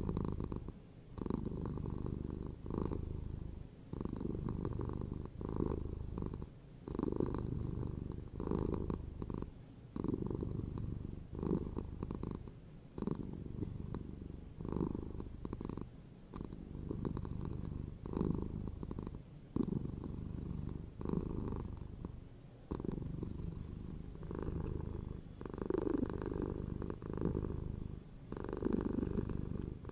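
Domestic cat purring close up while being stroked, a low rumble that swells and dips with each breath, about one pulse every one and a half seconds.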